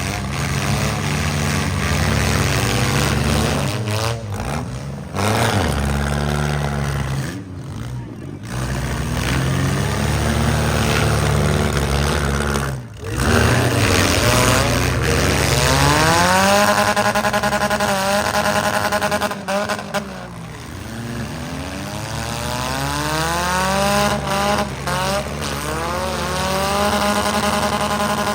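Demolition derby cars' engines revving hard and falling back over and over, several running at once, with brief drops in the sound.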